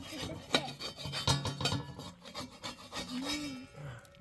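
Rough rubbing and scraping, broken by many short clicks and knocks.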